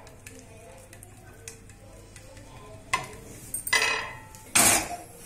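Pearl-millet dough being patted out by hand on a hot, oiled iron griddle, with a faint sizzle. A sharp click comes about three seconds in, then two louder knocking, rustling noises near the end.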